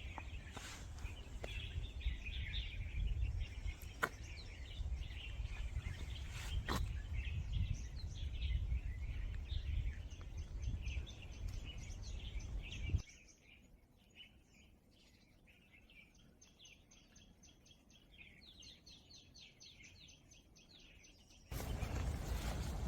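Wind buffeting the microphone, with birds chirping throughout. About halfway through the wind drops away, leaving fast, high, repeated chirping, and the wind noise comes back near the end.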